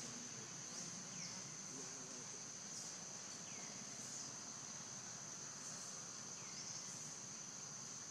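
Steady high-pitched insect drone, with short falling chirps repeating every second or so.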